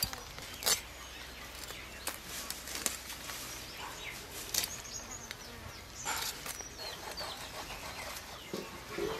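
Small river fish being scaled and cleaned against an upright bonti blade: short, sharp scraping strokes at irregular intervals, with faint chirps in between.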